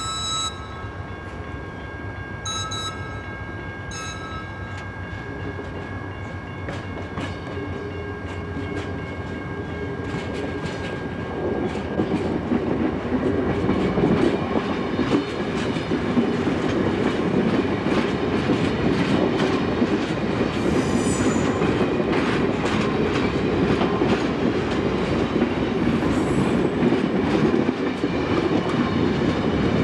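Amtrak passenger train approaching and passing: a few short horn blasts near the start, then a rumble that grows and turns loud after about twelve seconds as the stainless-steel passenger cars roll by, wheels clicking over the rail joints.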